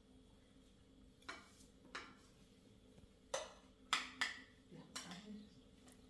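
Spoons clinking and scraping on plates during a meal: about half a dozen light, separate clicks, the loudest near the middle.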